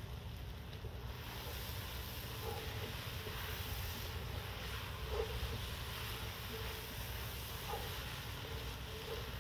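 Chopped vegetables sizzling and steaming in a cast-iron Dutch oven over a wood fire while being stirred with a wooden spoon, a steady hiss. Wind rumbles on the microphone underneath.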